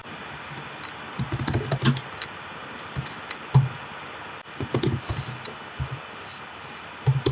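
Typing on a computer keyboard: quick runs of key clicks in several short bursts with pauses between them.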